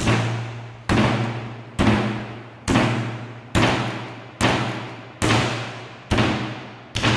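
Horror film score: a steady low drone under a heavy percussive hit a little under once a second, each hit ringing out and fading before the next.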